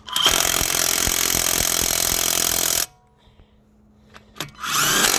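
Sealey CP400LIHV 18-volt cordless impact wrench hammering a wheel nut tight. It runs in one burst of nearly three seconds, stops, and after a pause of under two seconds a second burst starts near the end.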